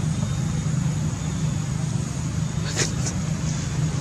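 A steady low drone, with two short sharp clicks about three seconds in.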